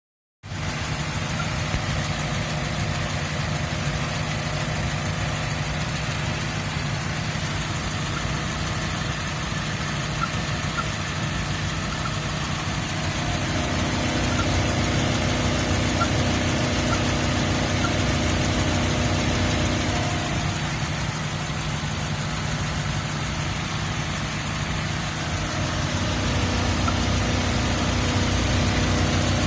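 2003 Mazda Miata MX-5's 1.8-litre four-cylinder engine idling steadily, with a faint, short chirp now and then.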